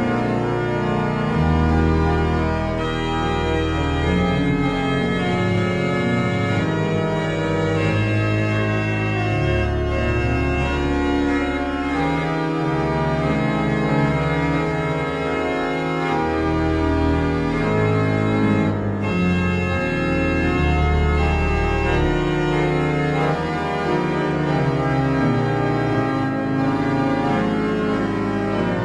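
Slow music of sustained organ-like chords, each held for a second or two before shifting to the next, at a steady level.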